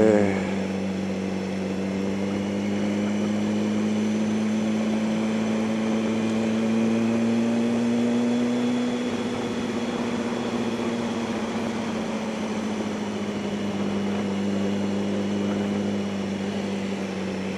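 Yamaha R1's inline-four engine running at steady, moderate revs, its pitch creeping up slightly and then easing back a little about halfway through, with wind and road noise underneath.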